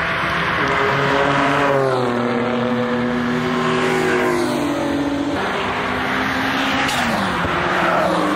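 Modified car's engine revving hard as it runs along a race track. The engine note drops in pitch about two seconds in and again near the end, over a steady rush of tyre and exhaust noise.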